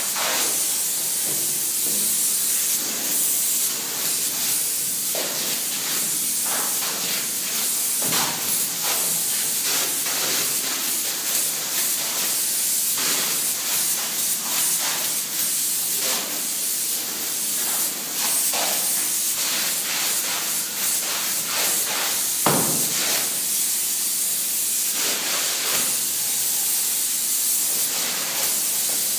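Spray polyurethane foam gun hissing steadily as it sprays foam insulation, with scattered short clicks and one louder knock about three-quarters of the way through.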